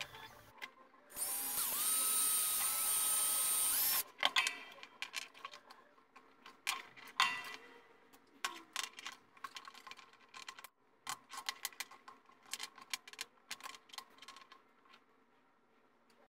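A small power drill runs for about three seconds, boring into bone for the joint's rods, and stops abruptly. After it come many light clicks and taps as the bone and small metal parts are handled.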